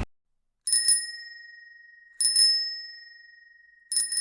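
Bicycle bell rung three times, each a quick double ding that rings on and fades, about a second and a half apart.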